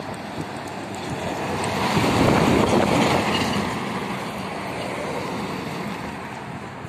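Loaded lorry passing close by at highway speed, its tyre and engine noise swelling to a peak about two to three seconds in and then fading as it drives away. A car follows it past.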